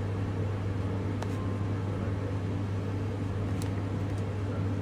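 A steady low machine hum, like a running kitchen appliance or fan, with two faint clicks, one about a second in and one past the middle.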